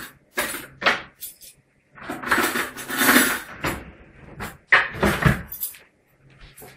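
Kitchen handling noise: a series of sharp knocks and clatters, with a longer rustling, scraping stretch about two to three and a half seconds in.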